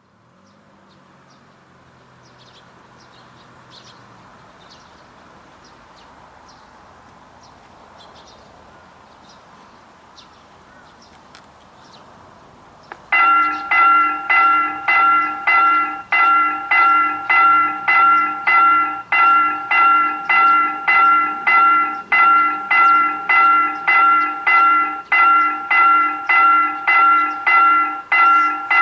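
Railway level-crossing warning bell starts about halfway through, ringing a loud, even ding-ding at about one and a half strokes a second: the signal that a train is approaching. Before it there is only faint outdoor background with light chirps.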